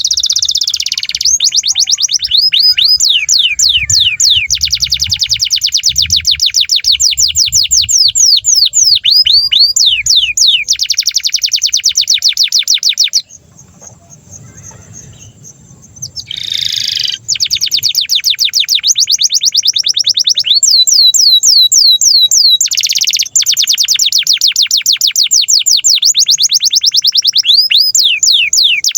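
Domestic canary singing long, rapid rolling trills of quickly repeated sweeping notes, changing from one trill to the next. The song breaks off for about three seconds near the middle, then resumes.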